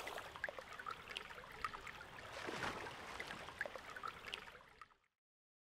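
Shallow stream water trickling softly, with small scattered plinks and splashes as a hand releases a brook trout in the water. It fades out about five seconds in.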